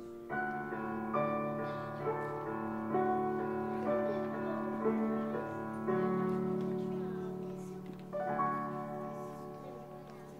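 Slow, soft piano music: chords struck about once a second, each left to ring and fade, then a pause before a last chord about eight seconds in that dies away.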